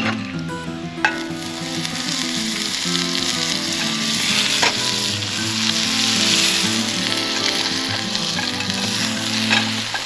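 Butter and a shredded potato pancake sizzling and frying in a hot cast-iron skillet. The hiss swells loudest in the middle, and a few light knocks come through.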